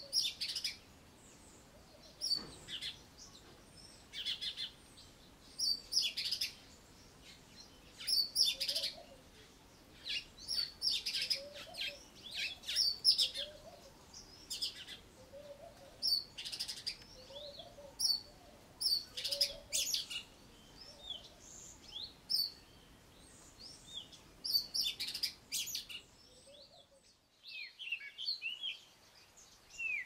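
Cape robin-chat mimicking a Southern Grey-headed Sparrow: short clusters of sparrow-like chirps, repeated about every two seconds. Near the end, after a brief pause, it switches back to its own melodious song.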